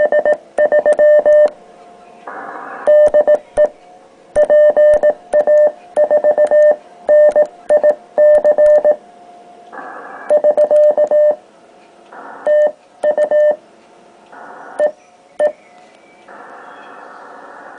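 Morse code sent on a homebrew twin-paddle key: a steady, high sidetone beeps out dots and dashes in quick groups, with a click at each keyed element. In several pauses between groups there is a short burst of hiss, and near the end steady hiss takes over.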